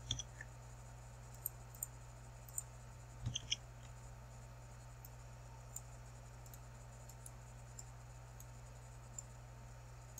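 Computer mouse clicking: a few scattered single clicks, with a louder cluster of clicks about three seconds in, over a steady low hum.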